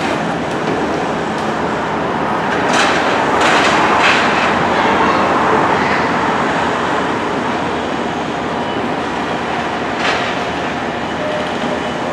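Train running along the track: a steady rattle and rumble of the car, swelling a few seconds in, with a handful of sharp clicks from the wheels.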